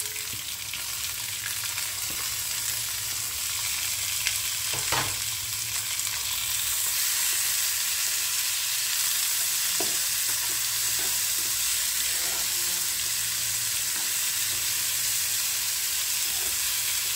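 Sliced onions, green chillies and chopped tomatoes sizzling in hot oil in a frying pan while a spatula stirs them. The sizzle is a steady hiss that grows a little louder about seven seconds in, with a few light taps and scrapes of the spatula against the pan.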